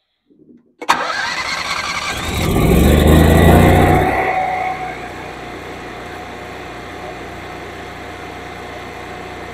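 Cummins 20 kW air-cooled home standby generator's engine starting: it catches suddenly about a second in, swells to a loud surge for a couple of seconds, then settles to a steady, quieter run, on a test start after a spark plug change.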